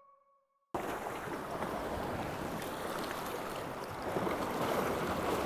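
A chime's ringing tail fades out in the first second, then steady wind and sea-wave noise, with wind buffeting the microphone.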